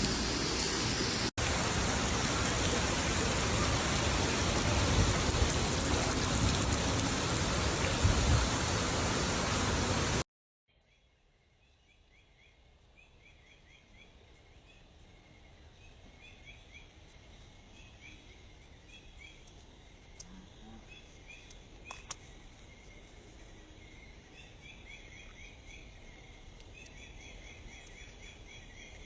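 Heavy rain pouring, a loud steady hiss that cuts off abruptly about ten seconds in. A much quieter outdoor scene follows, with runs of short high chirps from small animals that slowly grow louder.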